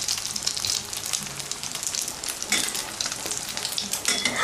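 Thai omelette of beaten egg and raw chopped pork frying in a scorching-hot wok with 2 to 3 tablespoons of oil: a steady, crackling sizzle. This much oil makes the omelette puff up fluffy.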